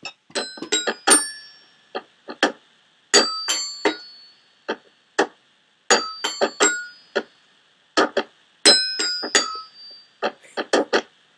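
Clinking percussion: hard objects struck in quick runs, each hit ringing briefly like a small bell or glass. The runs repeat in a rhythm, a group about every three seconds.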